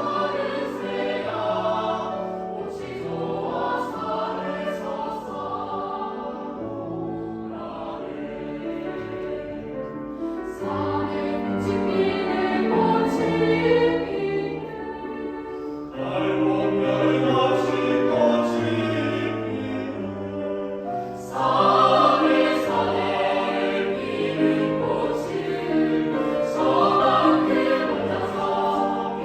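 Choir singing in concert, a sustained sung passage that swells louder about sixteen seconds in and again about twenty-one seconds in.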